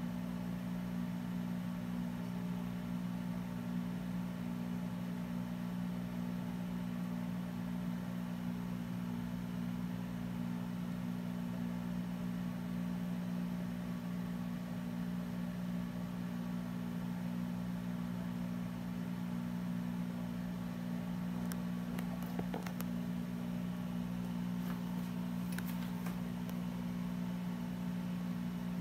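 Steady low machine hum, with a few faint clicks about three-quarters of the way through.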